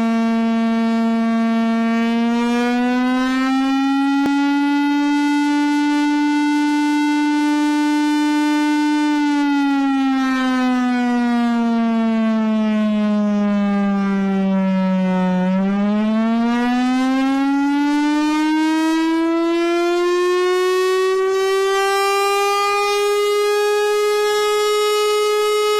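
Armenian civil-defence alarm siren sounding one continuous, unbroken tone. Its pitch rises a little in the first few seconds and holds, slides down to its lowest about halfway through, then climbs steadily to its highest pitch near the end.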